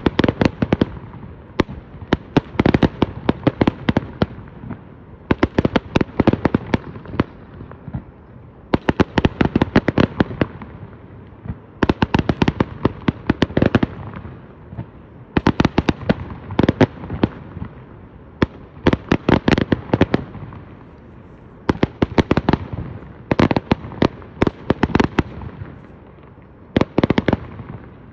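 Fireworks going off in repeated volleys of rapid, sharp bangs and cracks. About ten clusters come one every two to three seconds, each a quick run of reports.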